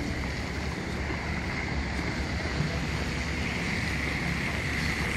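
Street traffic on a slushy, snow-covered road: cars passing with a steady hiss of tyres through the slush over a low rumble, and some wind on the microphone.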